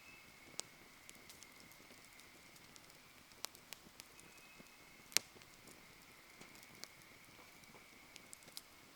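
Wood fire burning quietly, with sparse sharp crackles and pops, the loudest about five seconds in.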